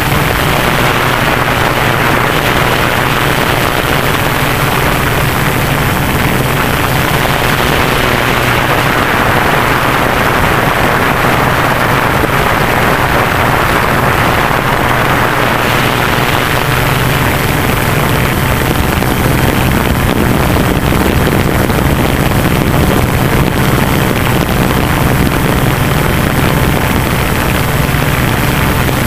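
Tarot 680 Pro hexacopter's six electric motors and propellers in flight: a steady hum under a rushing of air that swells a little midway.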